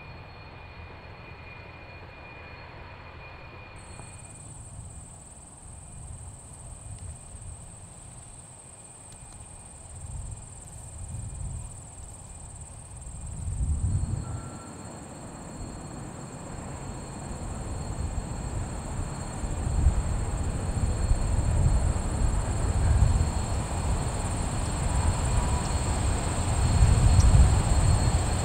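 Layered sound-design drone made to evoke a working factory: a low, machine-like rumble that swells in waves and grows steadily louder, under a thin, steady high-pitched whine that comes in about four seconds in.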